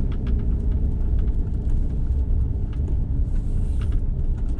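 Road noise of a car moving slowly, heard from inside: a steady low rumble of engine and tyres, with scattered small clicks and ticks.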